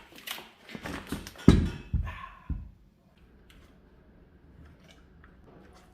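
Several knocks and thuds in quick succession, the loudest about a second and a half in, then a low background with a few faint taps.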